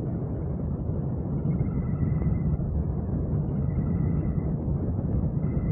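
Steady rumble of a very light airplane in flight: its engine and propeller running, mixed with wind noise on the microphone.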